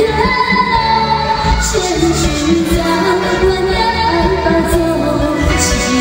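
A woman singing a Chinese pop song live into a microphone, backed by a band, holding long sung notes.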